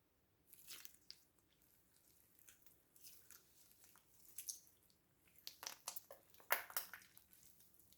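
Slime being squished and pressed by hand: irregular wet crackling and clicking squishes, coming in clusters and loudest near the end.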